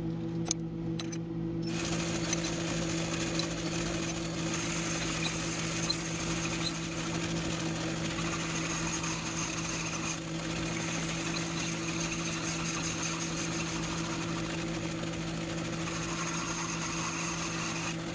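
Metal lathe boring an internal taper under hand feed from the compound slide: a steady hum from the machine, and from about two seconds in the continuous hiss and chatter of the boring bar cutting steel, with a thin high squeal that comes and goes.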